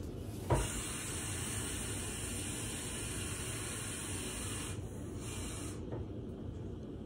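Kitchen tap turned on with a knock, then running water in a steady hiss for about five seconds, briefly dipping before it shuts off. This is water being drawn to add to the beans.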